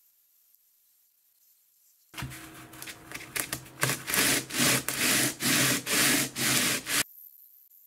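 A carbon fibre swinging arm rubbed by hand across a flat sheet of coarse sandpaper to flatten its face. The scraping starts about two seconds in, settles into back-and-forth strokes about two a second, and stops shortly before the end.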